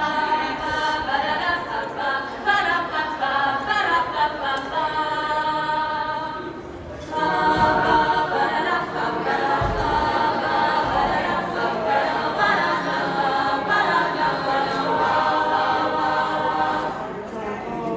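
A choir singing a cappella in several parts, with a brief breath pause about seven seconds in before the voices come back in.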